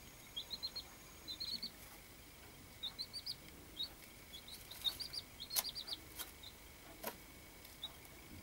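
Baby chicks peeping: short high cheeps in quick runs of three or four, coming in bursts throughout. A few sharp clicks sound in the second half, the loudest about five and a half seconds in.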